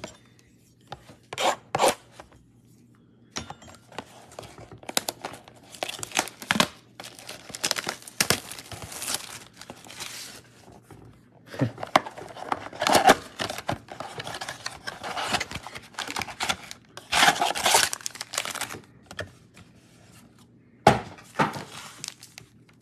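A cardboard trading-card blaster box being torn open by hand: irregular crinkling, tearing and rubbing of cardboard and packaging, with a few sharp taps and knocks. Near the end the foil card packs are pulled out and handled.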